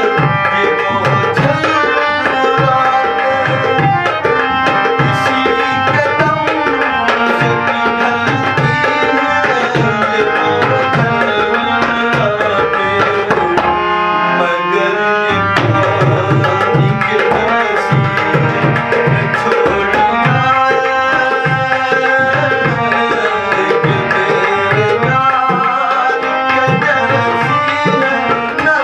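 A man singing long held, wavering notes over a hand drum played in a steady rhythm.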